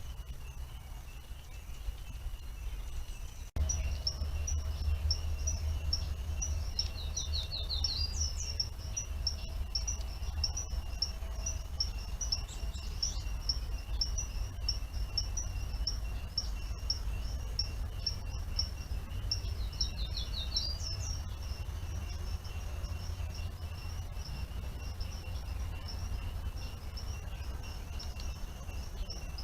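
Birds chirping over and over, with a few short rising trills, over a steady high-pitched insect trill and a low steady rumble.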